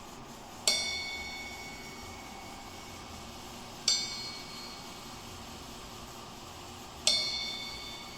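A bell-like chime struck three times, about three seconds apart, played through a home-built amplifier; each strike is a bright, high ringing tone that dies away over a second or two, over a steady hiss.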